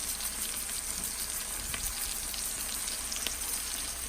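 Chicken pieces frying in olive oil in a pan: a steady sizzle with scattered small crackles.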